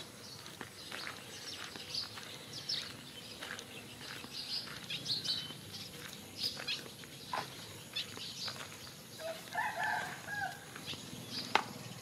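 Small birds chirping again and again, with footsteps on a dirt road. About nine seconds in, a rooster crows briefly, and a single sharp click comes near the end.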